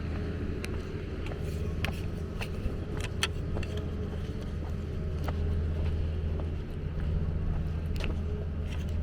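A motor vehicle engine running steadily with a low hum, with scattered sharp clicks and taps over it.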